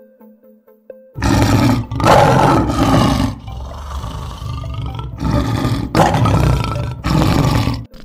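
Lion roaring: about four deep, loud roars starting about a second in, with a quieter rumbling stretch between the second and third. Soft tinkling background music plays before the roars begin.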